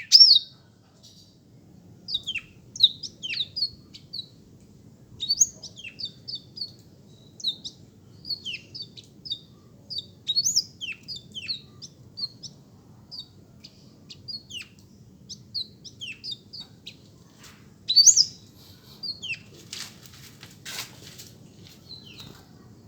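Black-throated canary (blackthroat) singing in short, scattered chirps and quick downslurred notes, with a louder burst of song about 18 seconds in. A brief scratchy noise comes a little later, over a faint steady low hum.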